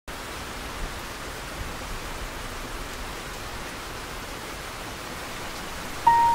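Steady rain falling, an even hiss. Near the end a single held piano note enters as the song's music begins.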